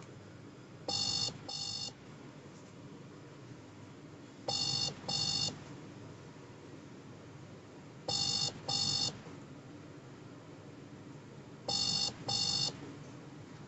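WhatsApp outgoing-call ringing tone from a smartphone: a pair of short electronic beeps repeated four times, about three and a half seconds apart, while the call waits to be answered.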